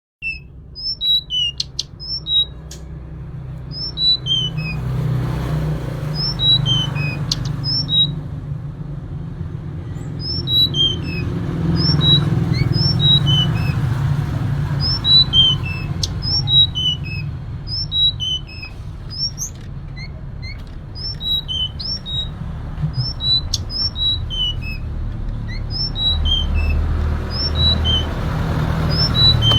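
Female tledekan gunung calling: short, high notes in falling phrases of about four or five, repeated every second or two, with a steady low hum underneath.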